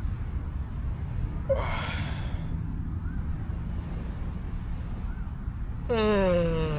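A person's voice: a short breathy sound about a second and a half in, then a drawn-out vocal sound falling in pitch near the end, over a steady low rumble.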